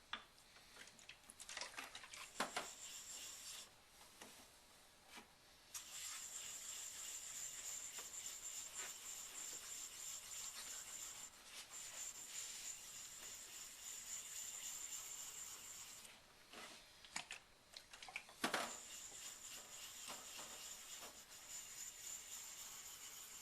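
A 5K Nubatama bamboo waterstone being cleaned off with water: long stretches of steady scrubbing hiss, broken by a few short pauses. Sharp knocks about two and a half seconds in and again near the end of the long stretch.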